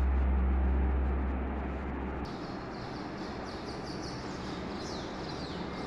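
A low steady hum that cuts off suddenly a little over two seconds in. After it, faint bird chirps over quiet background noise.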